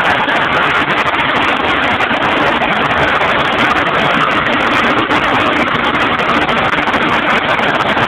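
A portable sawmill running: a loud, steady machine noise with an engine note underneath.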